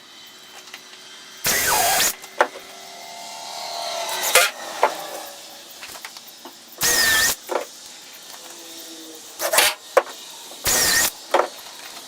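Power drill driving screws into wood in three short bursts of about half a second each, its motor whine dipping and rising within each burst. Sharp clicks and knocks come in between.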